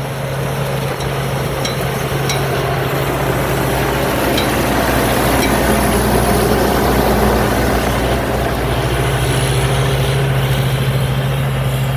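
Pornkinnaree combine harvester running while harvesting: a steady low engine drone under a dense mechanical rush, swelling slightly a few seconds in and then holding level.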